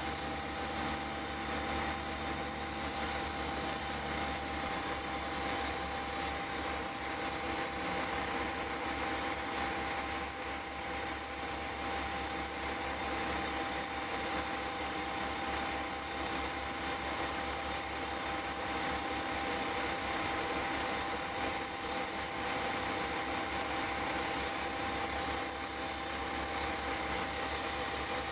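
C12 steam tank locomotive standing at rest, steam hissing steadily with a steady tone beneath it.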